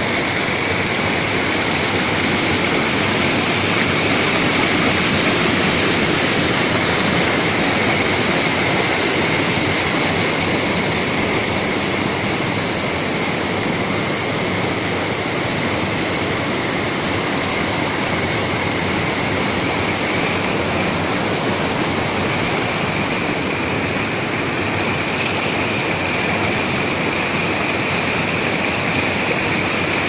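Water of a small waterfall and stream cascading over rock ledges: a steady rushing noise that does not let up.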